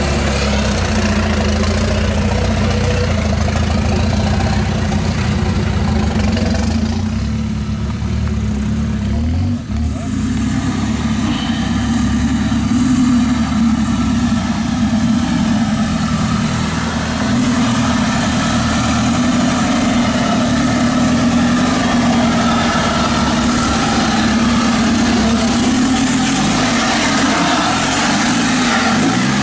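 Off-road vehicle engines working at low revs while crawling over rocks. First comes a tube-frame rock-crawler buggy. After a change about seven to ten seconds in, a lifted pickup truck's engine holds a steady note as it climbs a rocky gully.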